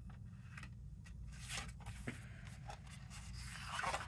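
A sheet of cardstock rustling and sliding over a paper trimmer and cutting mat as it is positioned, growing louder near the end.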